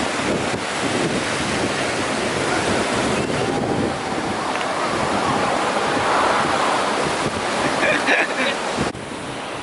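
Wind buffeting the microphone: a loud, steady rushing noise that drops off suddenly near the end.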